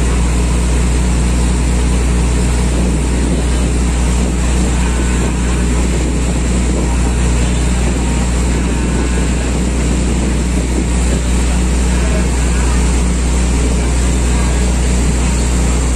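A boat's engine running steadily while under way: a loud, unbroken low drone with rushing noise over it.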